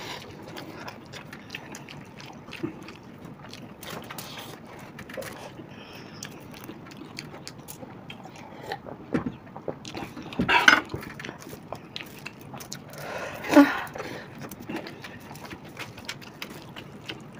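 Close-miked eating by hand: a steady patter of small clicks and rustles from fingers working biryani rice on a foil tray, with chewing and lip smacks. Two louder brief sounds come about ten and thirteen and a half seconds in.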